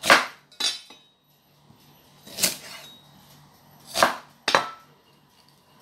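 A kitchen knife cutting through an onion and striking a wooden cutting board: five separate knocks at an uneven pace, two close together near the start and two close together near the end.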